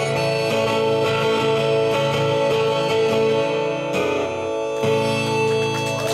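Acoustic guitars strumming chords under a harmonica holding long notes: the closing bars of a song.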